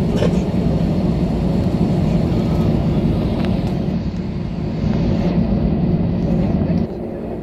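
Cabin noise of an Airbus A320-family airliner rolling on the ground just after landing: a steady low rumble of engines and wheels. It drops a little near the end.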